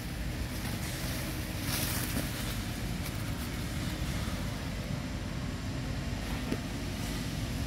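Steady low rumbling noise of wind buffeting the microphone.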